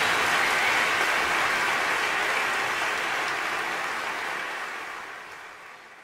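Audience applause, steady at first and then fading out over the last couple of seconds.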